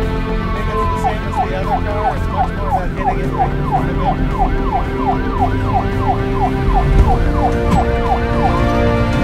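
A siren in fast yelp mode, its pitch rising and falling about three times a second, starting about a second in and stopping near the end, over steady background music.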